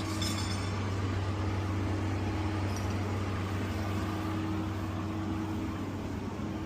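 Steady electrical hum of vending machines, a low drone with a fainter higher tone that fades for a while and comes back near the end, over a steady background hiss.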